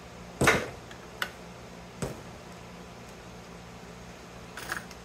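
Several knocks and clatters of heavy insulated cables with metal lugs being pulled from a variable frequency drive cabinet and set down on the workbench, the loudest about half a second in and a short cluster near the end, over a low steady hum.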